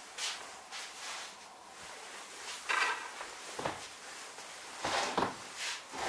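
Rustling and soft knocks as a person sits down at a table and handles things on it, with the loudest bumps about three and five seconds in.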